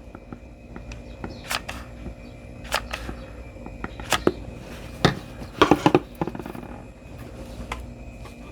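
Light clicks and knocks of 18650 battery cells being picked up and set down against each other on a flat work surface as they are hot-glued into a row. The taps come one or two at a time, with a quick cluster of several a little past the middle, over a faint steady hum.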